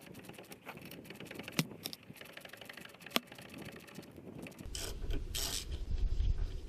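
Hand ratchet wrench clicking in fast runs with a few sharper metallic ticks as the 19mm inner tie rod on a Chevrolet C1500 is turned loose. About two-thirds of the way through, a louder low rumble with a couple of short scrapes joins in.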